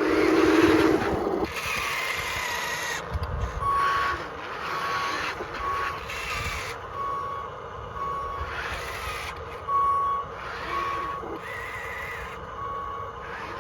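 Reversing beeper of an RC construction vehicle model sounding a short high beep about once a second, over the whir of its electric drive. A loud low hum plays in the first second or so before the beeping starts.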